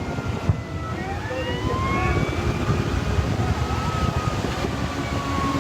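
Emergency vehicle siren wailing: its pitch slowly falls, then begins rising again about a second in, over a steady rushing noise.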